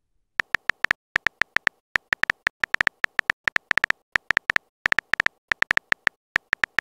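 Phone keyboard key-tap sound effects as a text message is typed: a rapid, uneven run of short, sharp clicks with a slight beep-like tone, coming in quick clusters with brief gaps.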